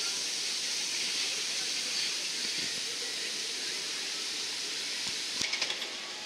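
Steady, even hiss of outdoor noise, with a short run of clicks about five and a half seconds in.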